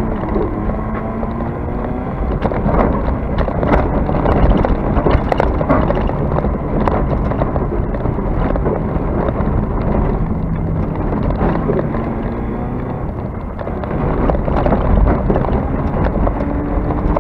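Off-road race vehicle's engine at full effort, heard from inside the cabin, its pitch climbing and dropping several times as the driver accelerates and lifts. Repeated knocks and rattles from the chassis on the rough dirt course.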